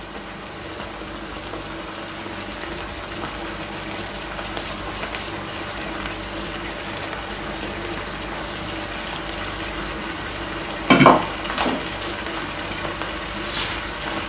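Asparagus and onion bubbling in chicken broth and butter in a frying pan on a gas burner: a steady sizzle with fine crackles and a faint low hum underneath. A brief louder sound breaks in about eleven seconds in.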